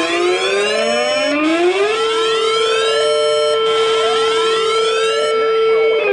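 Several outdoor warning sirens wailing over one another as the attention signal of an emergency alert. The loudest one winds up to a steady pitch about two seconds in, holds, and starts to wind down near the end.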